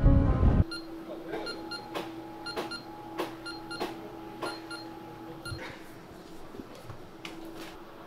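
Background music cuts off in the first second. A massage chair's handheld control panel then beeps in short paired electronic tones, with sharp clicks about every half-second over the next few seconds. A steady low hum runs beneath and stops about five and a half seconds in.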